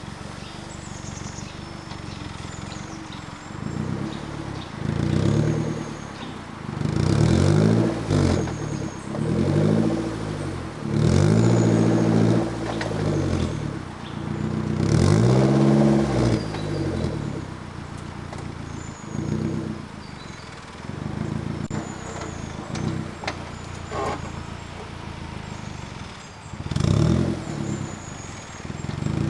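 Suzuki Jimny JB43 engine idling, then revved in a series of bursts that rise and fall in pitch as it crawls in low range over an axle-twisting obstacle. Birds chirp faintly in the background.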